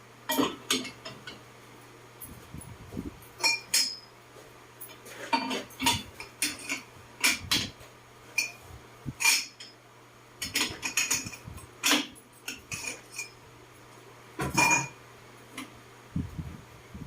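Metal parts and tools being handled, clinking and knocking against each other at irregular intervals, over a faint steady hum.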